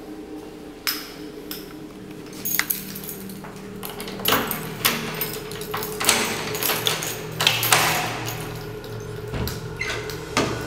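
Keys jangling and clinking with a run of sharp clicks and knocks, busier from about four seconds in, over a steady faint hum.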